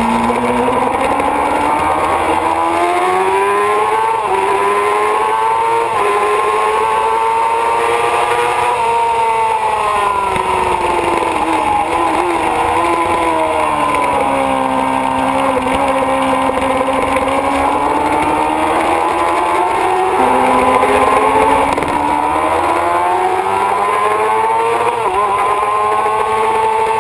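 Kawasaki ZX-6RR track bike's inline-four engine heard from on board at speed. It revs up over several seconds with short steps as it shifts up through the gears, drops away while slowing for a corner, holds low, then climbs again and falls off near the end.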